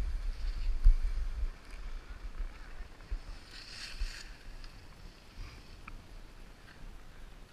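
Wind buffeting the skier's camera microphone as a low rumble, heaviest in the first second and a half and then easing. About halfway through comes a brief hiss of skis scraping across the snow in a turn.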